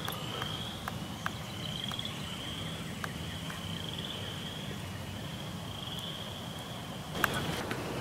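A frog calling steadily in the background: a high, rasping, slightly rising trill, each under a second long, repeated about once a second. A few faint clicks and a sharper knock come near the end.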